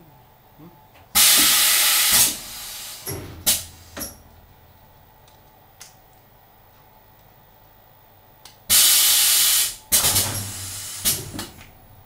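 Pneumatic blow moulding machine cycling: a loud blast of compressed air hisses for about a second, twice, some seven seconds apart. Each blast is followed by several sharp clicks and knocks from the machine's pneumatic cylinders and mould.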